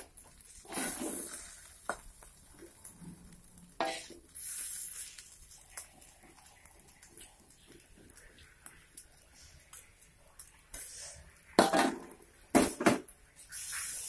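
Spatula scraping and knocking against a metal wok as fried rice is stirred, with scattered clinks of dishes and utensils. The scrapes come in short bouts, and a few louder knocks on the pan fall near the end.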